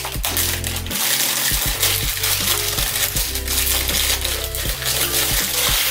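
Background music with a steady beat and bass line, over the rustle and crackle of cardboard and plastic packaging being opened.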